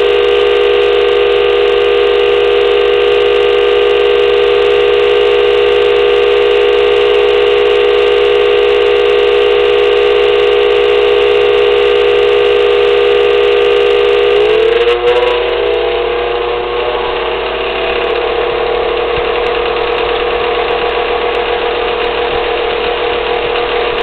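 Pellet stove's Fasco convection (room) blower motor running with a steady humming whine and vibration, noise the owner is showing as a problem at startup. About 15 seconds in the pitch slides upward and the sound turns rougher and a little quieter.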